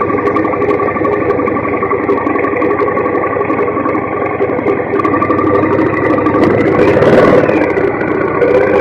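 Engine of a 2017 Triumph Bonneville T100, a 900 cc parallel twin, running steadily under the rider as the motorcycle rolls along, growing a little louder with a brief hiss about seven seconds in.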